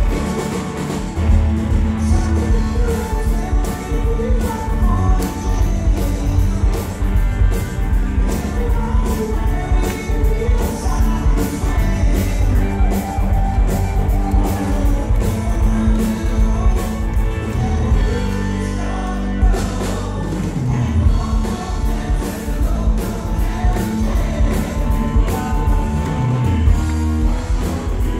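A live rock band playing with a drum kit and sung vocals, picked up by a phone microphone right beside a PA speaker, so the bass is very heavy.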